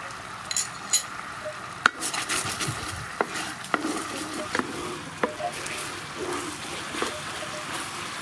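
A sauce of oil, chili sauce, hoisin sauce, sugar and salt bubbling and sizzling in a frying pan while a wooden spatula stirs it, knocking against the pan several times. There is one sharp click about two seconds in, and a couple of light clinks near the start.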